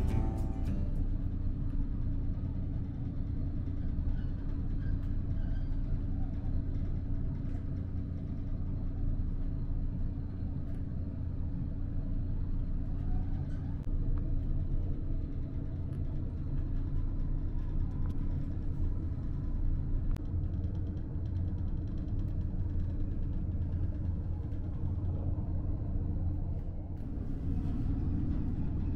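KiHa 54 diesel railcar heard from inside the passenger cabin: a steady low drone of the diesel engine under the rumble of the wheels on the rails.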